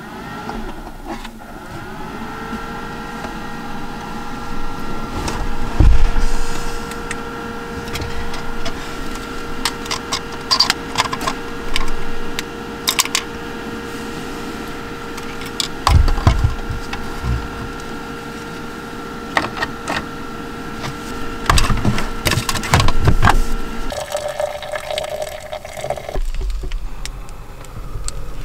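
A small electric motor spins up over the first couple of seconds and runs at a steady humming pitch, then stops suddenly about 24 seconds in. Scattered knocks and clicks sound over it, the loudest about 6 and 16 seconds in.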